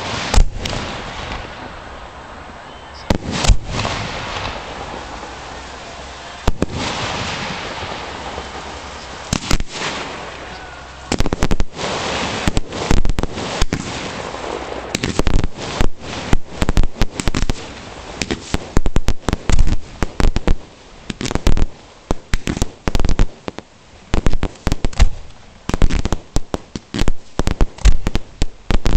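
4–6 inch fireworks aerial shells firing from mortar tubes close by and bursting: a few widely spaced bangs with long fading noise over the first ten seconds, then a rapid, ever-denser barrage of sharp reports.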